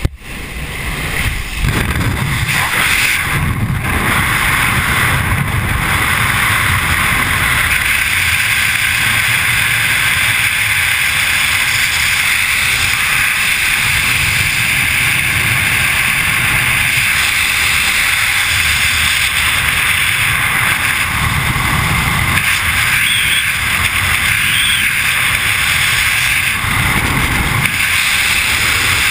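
Loud, steady freefall wind rushing over the microphone of a wingsuit jumper's body-mounted camera, building over the first second or two after the exit from the aircraft door and then holding level.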